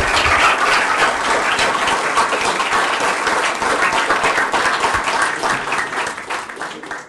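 Audience applauding, a dense, steady clapping that tapers off in the last second or so.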